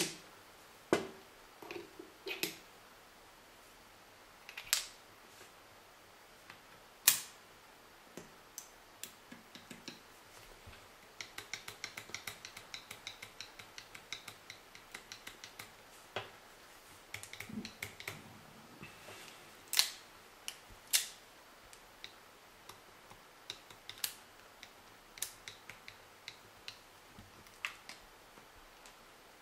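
Stainless Taurus .44 Remington Magnum double-action revolver being handled: sharp metallic clicks and clacks of its action and cylinder, with cartridges tapping into the cylinder near the start. Around the middle comes a quick run of light clicks.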